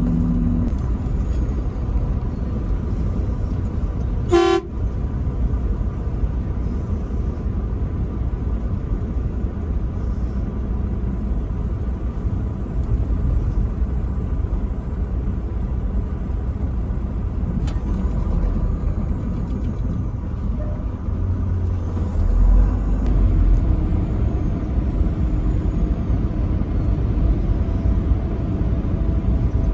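Steady low engine and road rumble of a truck driving, with one short truck horn blast about four seconds in.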